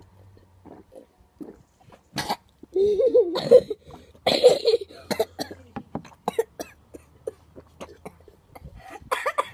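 Children coughing and spluttering after gulping down a glass of a foul-tasting mix of cola and fruit juice. A sharp cough comes about two seconds in, then louder bouts of coughing and gagging around three to five seconds in.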